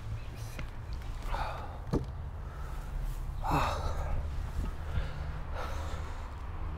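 A man breathing out heavily in three long sighing breaths about two seconds apart, the middle one loudest, over a steady low rumble, with a couple of sharp clicks.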